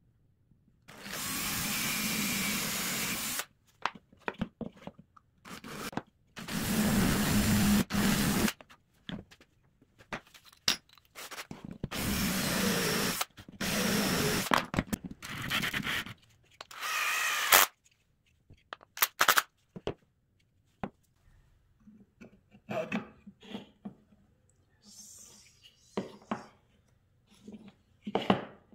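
Cordless drill boring into plywood in about five runs of one to two and a half seconds each, stopping and starting between them. Near the end, lighter short clicks and knocks as wooden parts are handled.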